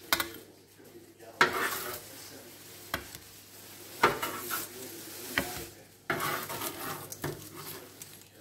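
Metal spatula scraping baked zucchini slices off a parchment-lined baking tray and setting them on a plate: four separate scrapes with sudden starts, with a few light clicks of metal against the tray and plate in between.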